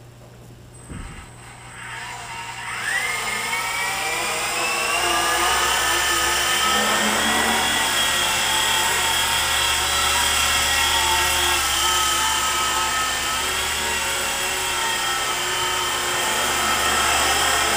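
Electric motor and rotors of an E-flite Blade SR120 micro RC helicopter spooling up, a whine rising in pitch about three seconds in, then running steadily as it lifts off and hovers.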